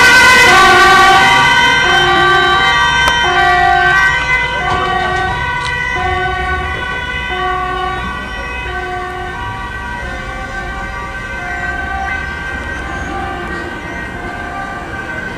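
Dutch police van's two-tone siren, alternating between a high and a low note about every three-quarters of a second, fading steadily as the van drives away on an urgent call.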